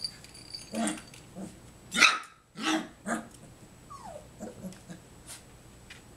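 Litter of three-and-a-half-week-old puppies yapping and growling in play: a string of short high barks, the loudest about two seconds in, then a falling whine near the four-second mark and a few softer yips.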